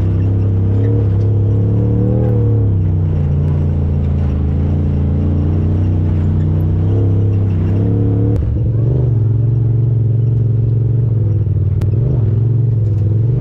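Side-by-side UTV engine running steadily under way on a dirt trail, heard close from the vehicle itself, its pitch rising and falling slightly with the throttle.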